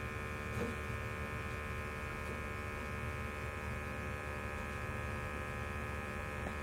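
Burnham IN6 gas-fired steam boiler firing, a steady hum with a thin buzz over a low rumble, with a couple of faint ticks.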